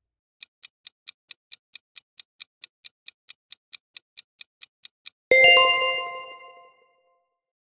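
Quiz countdown-timer sound effect: quick clock-like ticks, about four or five a second, for about five seconds. Then a bright chime of several tones rings out and fades, signalling that the correct answer has been revealed.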